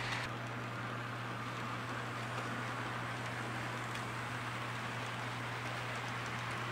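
HO-scale model freight train running past on the layout track: a steady whirring rumble of wheels and motors with a hiss, holding an even level throughout.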